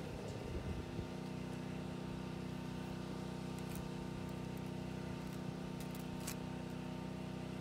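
Portable generator engine running steadily, a constant even hum that holds from about a second in to the end. Two faint ticks sound over it, about four and six seconds in.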